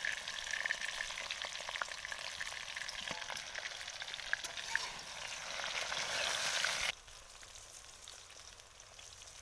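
Nigella seeds tempering in hot mustard oil in an aluminium wok alongside fried flat beans: a dense sizzle with scattered pops. The sizzle cuts off suddenly about seven seconds in, leaving a faint hiss.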